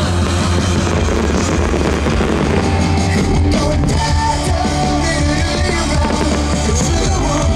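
Rock music with guitar and a drum kit playing steadily, the soundtrack of a fireworks show.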